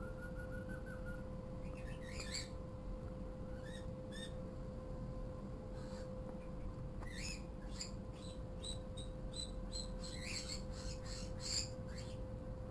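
Pet birds chirping and calling, with short high chirps scattered throughout and a quick run of repeated chirps a little past the middle, over a steady faint hum.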